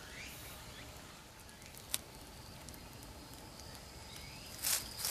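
Quiet woodland ambience with a few faint bird chirps and a single sharp click about two seconds in. Near the end, footsteps start crunching on dry leaf litter.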